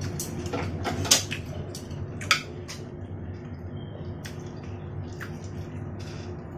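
Chopsticks clicking and tapping against the dumpling plate and the sauce bowl, a few sharp clicks in the first three seconds and lighter taps after, over a low steady hum.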